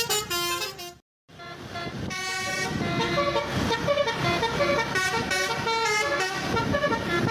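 Background music: a melody of buzzy, horn-like tones stepping from note to note. It stops about a second in, and after a brief silence a new tune starts and carries on.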